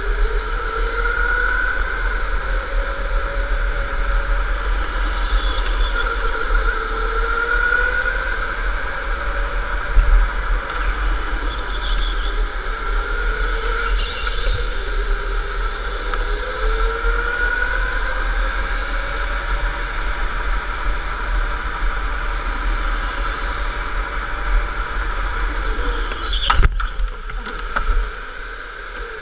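Electric go-kart motor whining over the rumble and rattle of the kart at speed, the whine rising again and again as the kart accelerates out of corners and falling off into them. Near the end the whine sweeps down sharply and the sound drops much quieter as the kart slows.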